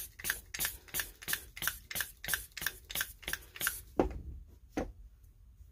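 Hand-pump pressure tester being worked in quick, even strokes, about three a second, pressurizing a Stihl MS170 chainsaw's crankcase to 9 or 10 psi to find an air leak. The pumping stops about four seconds in, followed by two knocks.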